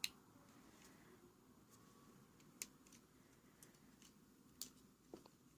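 Near silence with a few faint, short clicks: one right at the start, one about two and a half seconds in and a couple near the end, like a small plastic toy helicopter being handled.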